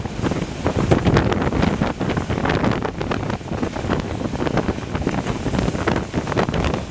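Wind buffeting the microphone on the roof of a moving train, over the train's running noise.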